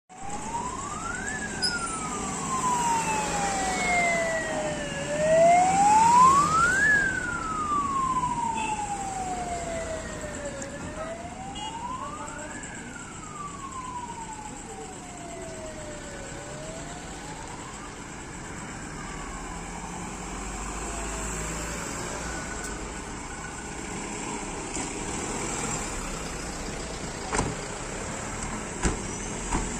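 Police convoy sirens wailing in slow rise-and-fall sweeps about every six seconds, with a second, fainter siren pitched higher. The sirens fade away after about twenty seconds, leaving vehicle noise and a few sharp knocks near the end.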